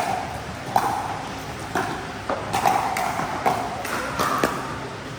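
Pickleball paddles striking a plastic ball in a rally: a string of sharp, hollow pops, about eight of them, each with a short ring.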